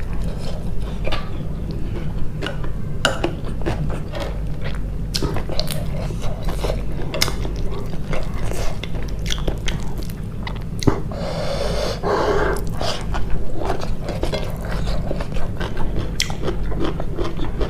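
Close-miked chewing and biting: many short wet clicks, smacks and crunches of food being eaten, over a steady low hum.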